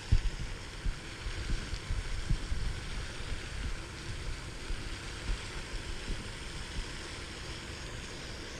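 Wind buffeting the microphone in uneven low gusts, over a steady hiss.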